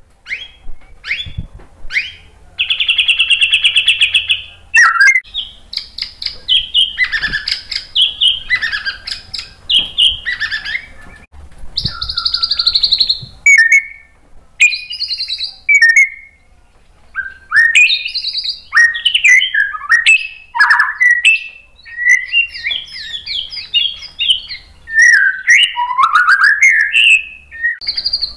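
Male white-rumped shama singing loudly: a rapid run of varied whistled phrases, slurred notes and chattering trills, with a long buzzy rattle about three seconds in and a sparser stretch of a few notes around the middle.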